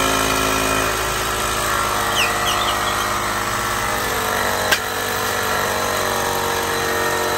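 AstroAI portable tire-inflator air compressor running steadily, pumping air through its nozzle into a rubber golf grip to balloon it open while the grip slides onto the shaft. The motor settles slightly lower in pitch about a second in, and there is one sharp click a little past halfway.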